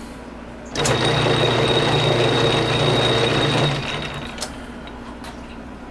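South Bend 9-inch Model A metal lathe switched on under power with the half nuts engaged, the lead screw feeding the carriage to take up backlash before thread chasing. It runs steadily with a hum and a thin high whine, then is switched off about three and a half seconds in and runs down.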